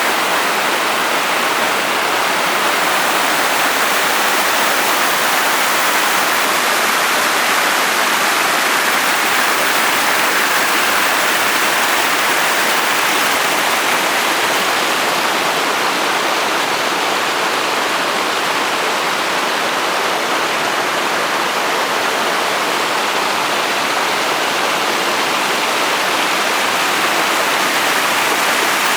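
Meltwater from snow and rainwater running fast, a loud steady rush that does not change.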